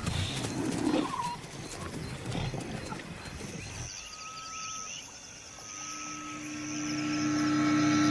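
Lionesses growling as they feed together on a kill. About four seconds in, music fades in with long held notes and builds steadily.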